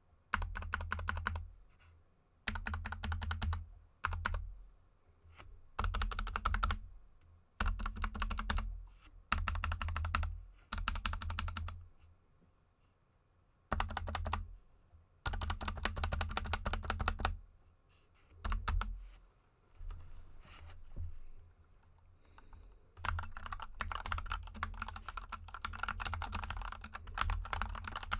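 Typing on a GK64 mechanical keyboard with linear Gateron Yellow switches lubed with Krytox GPL 205 g0 and XDA keycaps: quick runs of key presses, each a second or two long, with short pauses between. About two-thirds of the way through the typing stops for a moment, and near the end it runs on without a break.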